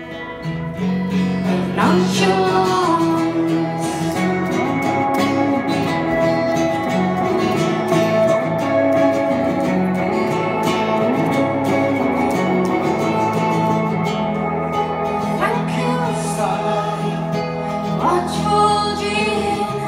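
Live band music: two electric guitars ringing with sustained chords and a woman's voice singing over them.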